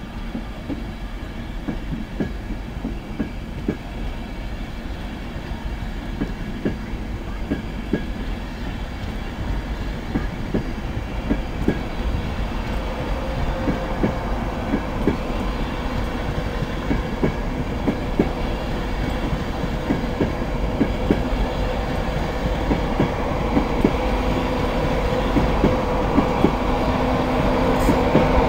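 East Coast InterCity 225 train of Mark 4 coaches running past, wheels clicking rhythmically over rail joints. A steady hum enters about halfway through and the sound grows steadily louder toward the end.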